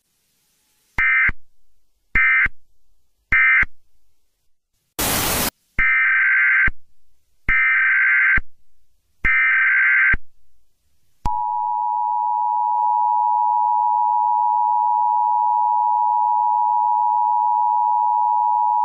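Emergency Alert System tones. First come three short buzzy data bursts, the end-of-message code, then a brief burst of static. Three longer data bursts follow, the header of the next alert, and then, about eleven seconds in, the steady two-tone attention signal starts and holds.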